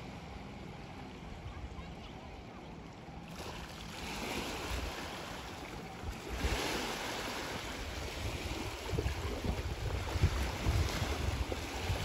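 Wake from a small outboard-powered boat washing and lapping against a riverbank, building up about a third of the way in and swelling again near the middle, with uneven low surges later on. Wind buffets the microphone, and the boat's outboard motor runs faintly at a distance.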